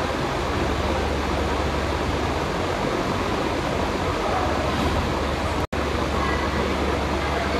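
Steady rushing background noise with a low hum underneath, broken by a split-second dropout about three-quarters of the way through.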